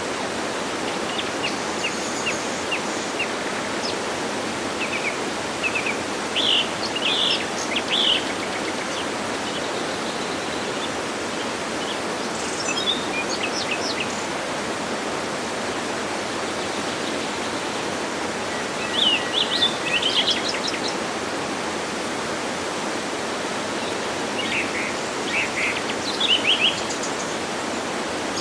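Steady rush of a waterfall, with birds chirping over it in short bursts several times.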